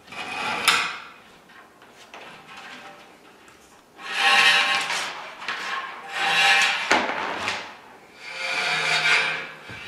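Steel cable being pulled by hand through the drilled holes of steel I-beam railing posts, scraping in long pulls. There is one pull at the start, then three more from about four seconds in, with a sharp click in two of them.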